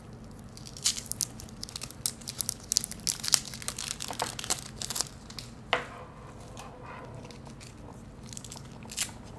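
Crinkling and rustling of packaging with small clicks as a laptop power adapter and its cable are unwrapped and untied: a dense run of sharp crinkles for the first several seconds, then quieter handling and a single click near the end.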